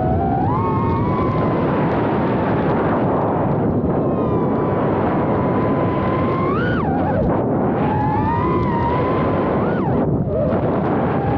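Small FPV racing quadcopter's tiny 1303-size brushless motors and props whining over heavy rushing air noise, heard from the craft itself. The whine holds a steady pitch, then shoots up in sharp throttle punches about seven and ten seconds in, each dropping right away as the throttle is cut for a flip or roll.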